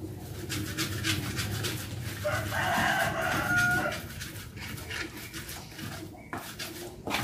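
A rooster crows once, a single long call of about a second and a half starting a little over two seconds in. Under it and throughout, a pestle scrapes and knocks in a mortar (cobek) as sambal is ground.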